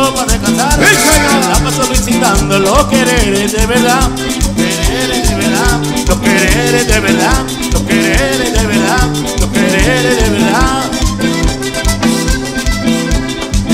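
Cumbia band playing live: button accordion melody over bass guitar and drums, with a steady rattling percussion beat.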